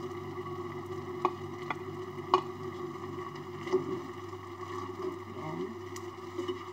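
A spatula stirring shrimp, squid and sliced bell pepper in a frying pan, with a few sharp clicks of the spatula against the pan in the first half, over a steady hum.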